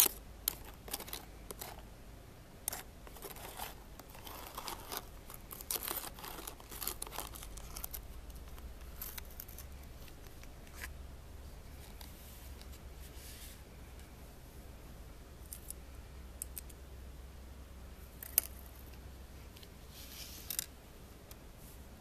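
A plastic spoon and copper jewelry clicking and scraping against a plastic tub, with many small knocks in the first several seconds, then sparser ones and a single sharper click near the end.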